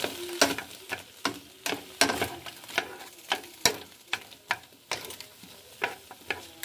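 Frozen mixed vegetables sizzling in a hot skillet over high heat while being tossed with tongs, which knock and scrape against the pan about twice a second.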